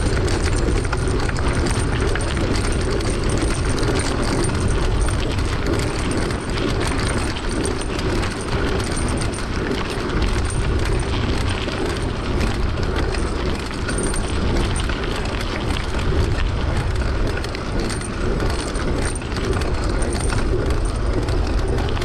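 Wind buffeting the microphone over the steady rattle and crunch of a mountain bike riding a rough dirt track, with small clicks and knocks throughout.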